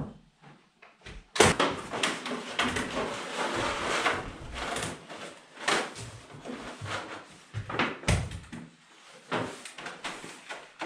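Rafter vent baffles being handled and pushed into place between roof rafters: rustling, scraping and irregular knocks. The loudest knock is about a second and a half in, with another sharp one about eight seconds in.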